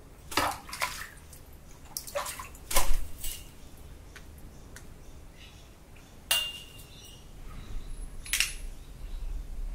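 Laughing kookaburra wiping and tapping its beak against a railing to sharpen it: irregular sharp clicks and scrapes, the loudest about three seconds in.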